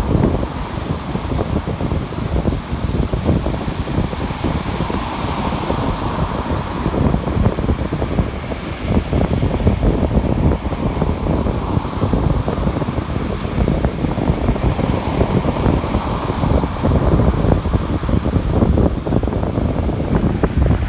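Strong wind buffeting the microphone, a loud, continuous rumbling rush that swells and eases in gusts.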